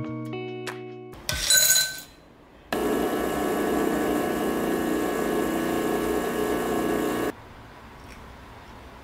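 An espresso machine's pump runs with a steady hum while a shot is extracted, for about four and a half seconds, then cuts off suddenly. A brief hiss comes just before it.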